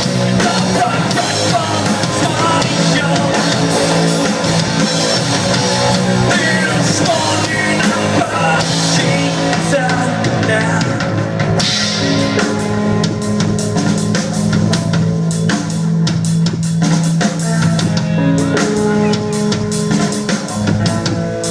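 Rock band playing live, with drum kit and guitar.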